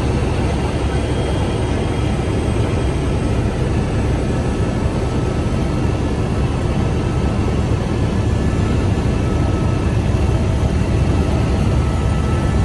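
Steady engine and airflow noise inside an aircraft cabin: a heavy low rumble with a few faint, steady whining tones above it, as the plane descends on final approach to the runway.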